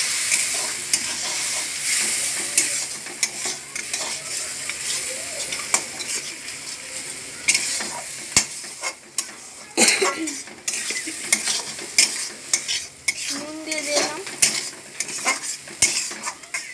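Onion and garlic masala sizzling in oil in a wok, with chilli and turmeric water cooking off: loud at first, then dying down over the seconds. A metal spatula stirs and scrapes the pan, with frequent sharp clicks and taps against the metal.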